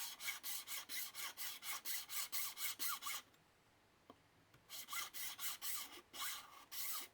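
Cheap hand hacksaw cutting through a power adapter's plastic casing in quick back-and-forth strokes, about four a second, with a pause of about a second and a half midway before the sawing resumes.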